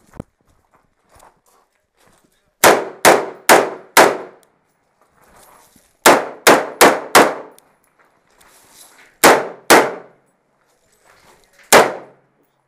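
Rifle shots from an AR-style carbine fired in quick strings: four fast shots, another four, then two and a single one. Each shot is sharp with a short metallic ring-out under the sheet-metal roof.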